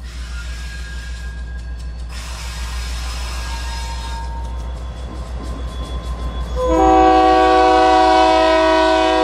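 Diesel locomotive rumbling as it draws up and passes close by, then its multi-note air horn sounds, loud and steady, about two-thirds of the way in and holds.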